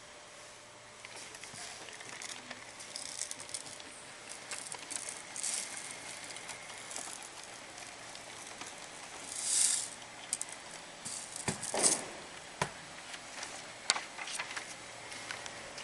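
Samsung CLP-325W colour laser printer running a print job: a steady mechanical whir with rattling and ticking, then a louder rush and several sharp clicks in the last third as the page feeds out.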